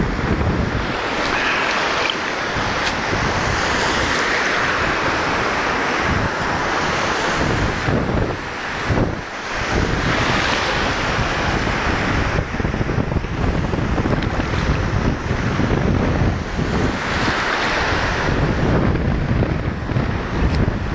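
Wind buffeting the microphone over the hiss of small waves breaking and washing in shallow surf, the wash swelling and fading every few seconds.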